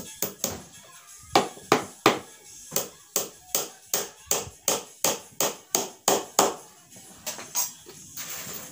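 Hammer driving nails into the 12 mm plywood panels of a speaker cabinet: a run of sharp strikes, about three a second, with a couple of short pauses.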